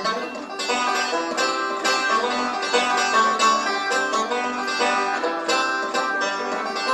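Five-string-style banjo played solo, picking a steady run of plucked notes as an instrumental break between sung verses of a country song.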